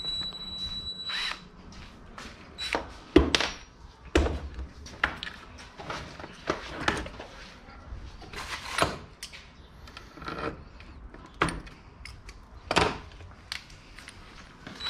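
A string of separate knocks, clicks and clatters: metal drill bits being picked out of a plastic bit case and a larger bit being fitted into a cordless drill's chuck by hand. The loudest knock comes about three seconds in. The drill is not run.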